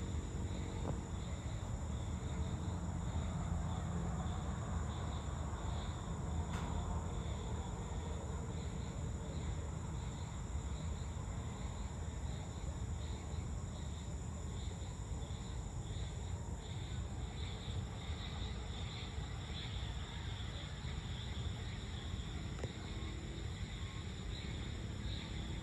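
Steady evening insect chorus, with high, even bands of chirring, over a constant low rumble of background noise. A single faint click comes about six and a half seconds in.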